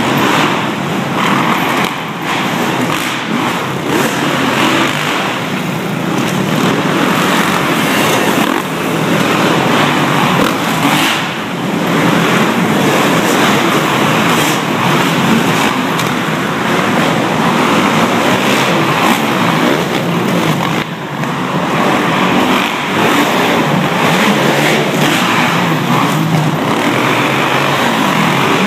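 Dirt bike engines revving and running loudly and continuously, rising and falling as the bikes lap the track.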